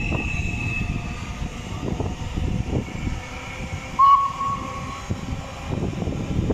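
Class 350 Desiro electric multiple unit passing close by, its wheels giving a steady rumble on the rails with irregular low knocks. About four seconds in a brief high tone, about a second long, is the loudest sound.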